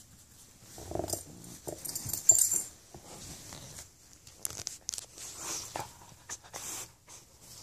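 A dog making short vocal sounds while being petted, with rustling of fur and handling, and a brief bright jingle about two seconds in.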